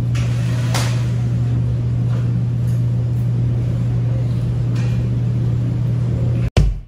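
A loud, steady low mechanical hum, with a faint clink or two of utensils, cutting off abruptly near the end as music starts.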